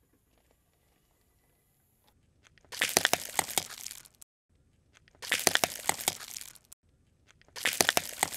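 Car tyre rolling over and crushing small plastic candy containers: three bursts of crackling and snapping, each about a second and a half long, the first about three seconds in.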